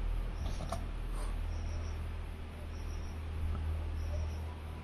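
Steady low hum with faint high chirps coming in pairs about once a second.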